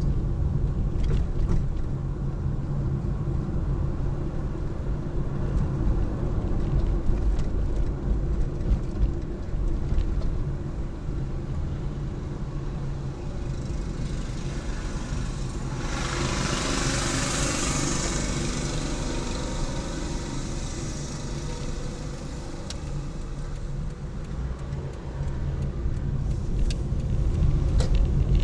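Car driving along a road: a steady low rumble of engine and tyres, with a louder rushing noise that swells and fades about halfway through.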